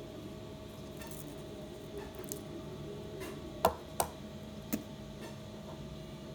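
Three small sharp clicks from tools or parts being handled during hand soldering, over a faint steady hum.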